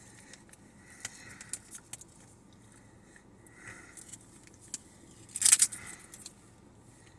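Crinkling of a plastic potato-chip bag as chips are taken out: scattered soft crackles, with one louder rustle about five and a half seconds in.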